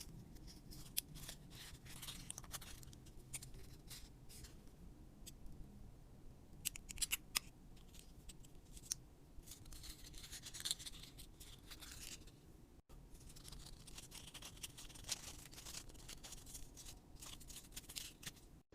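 Faint scissors snipping with light handling noise from crafting, in scattered quiet clicks and snips. A few sharper snips come about seven seconds in.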